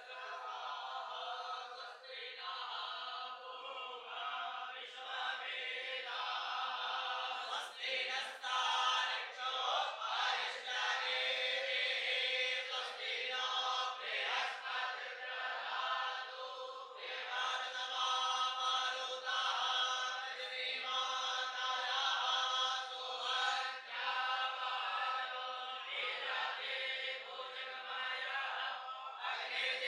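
A group of young Vedic students chanting Sanskrit mantras together in chorus.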